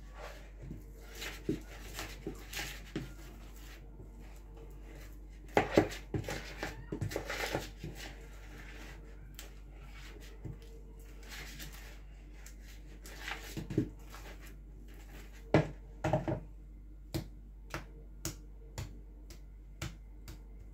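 Spatula scraping banana bread batter out of a plastic mixing bowl and spreading it in a foil baking tray: irregular scrapes and soft knocks, with a run of separate sharp clicks near the end.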